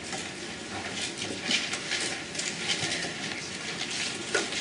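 Classroom background noise: irregular light rustles and clicks, with no speech.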